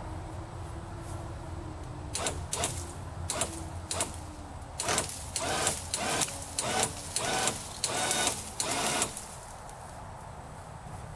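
ATV's electric winch reeling in cable under load in a run of short stop-start bursts, about two a second, as it drags a dead tree out of the brush, over a steady low engine idle. The bursts come from about two seconds in and stop near the end.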